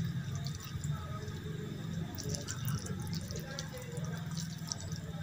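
Rice and runny dal being mixed by hand: soft wet squelches and many small sticky clicks, over a steady low hum.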